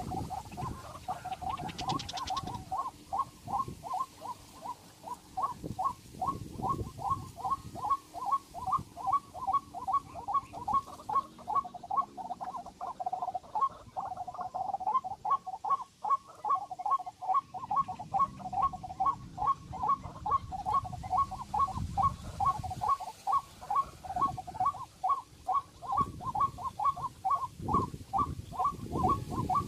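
A bird calling over and over in a rapid, even series of short notes, about three a second, with low rumbling noise now and then.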